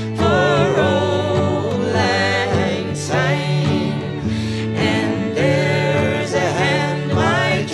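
Christmas song: a singer holding long, wavering notes over steady instrumental accompaniment.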